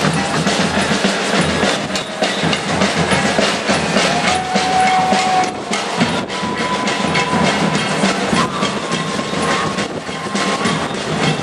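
Loud street noise from a passing march: a dense rumble with a rapid clatter and a few brief held tones from about the middle on.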